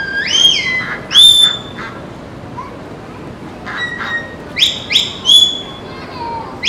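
Handler's shepherd's whistle giving herding commands to a stock dog working ducks. Two rising notes in the first second and a half, then a quick run of short, sharp rising notes about four to five and a half seconds in.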